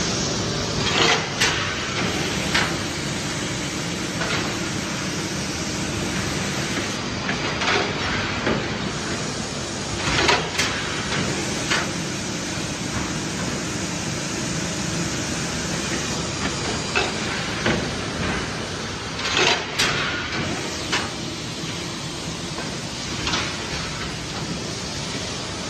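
Blister-tray thermoforming machine running: a steady mechanical din with short knocks every few seconds, loudest about ten seconds in and again near twenty seconds.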